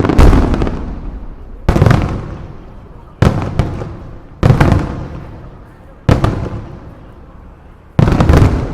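Aerial firework shells bursting overhead: six loud booms roughly every one and a half to two seconds, each followed by a long rumbling echo that dies away.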